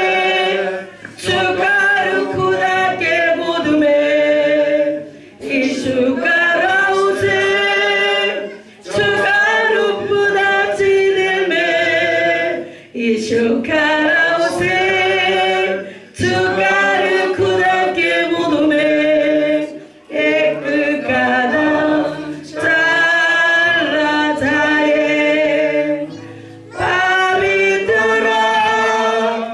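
Small mixed group of men and women singing a hymn together into a microphone, unaccompanied, in phrases a few seconds long with short breaks for breath between them.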